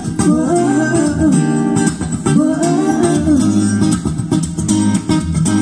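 Acoustic guitar strummed in a short instrumental break of a live acoustic pop song.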